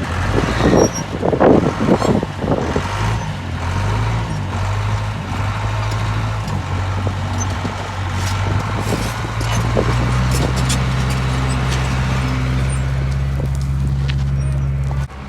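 Bulldozer's diesel engine running steadily, its pitch rising slightly and growing louder about ten seconds in, with louder irregular noises over it in the first three seconds.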